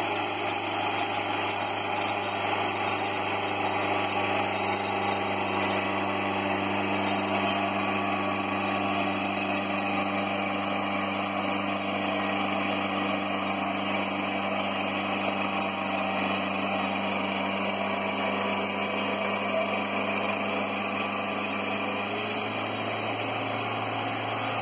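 Wood-Mizer hydraulic portable bandsaw mill running steadily, its engine under load as the band blade saws through a log and blows out sawdust. About 22 seconds in, the engine note changes slightly.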